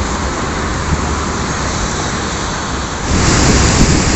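Steady rushing noise of sea surf and road traffic along a seafront. About three seconds in, it switches abruptly to a louder, hissier rush of breaking waves.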